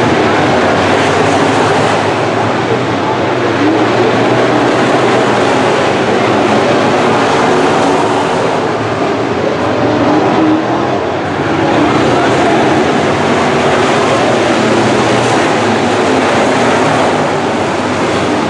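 A field of IMCA Modified dirt-track race cars running at speed, their V8 engines making a loud, continuous din.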